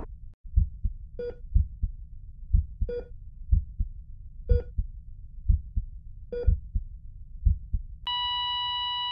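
Heartbeat sound effect: soft low double thumps about once a second, with four short electronic heart-monitor beeps. Near the end a steady continuous monitor tone sets in, the flatline.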